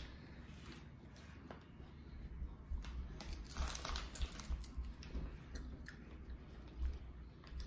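Faint bite and chewing of a puffed onion-ring-shaped snack, a few small crunchy crackles clustered a few seconds in, with the soft crinkle of a foil snack packet being handled.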